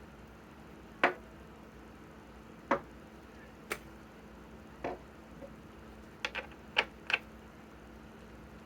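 Scattered sharp clicks and knocks of tools and hardware being handled, about one a second at first, then a quick cluster of four near the end, over a faint steady hum. No impact wrench is running.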